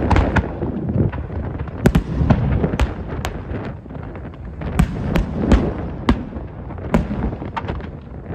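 Aerial fireworks bursting overhead: a string of sharp bangs and cracks at irregular intervals over a continuous low rumble.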